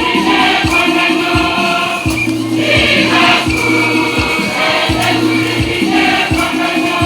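Church choir singing a hymn with musical accompaniment, over a steady low beat that falls about every 0.7 seconds.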